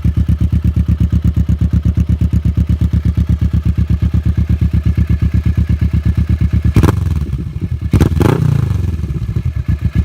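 Kawasaki Vulcan S parallel-twin motorcycle engine idling with a rapid, even pulse through the exhaust. It is blipped twice with the throttle, about seven and eight seconds in, then drops back to idle.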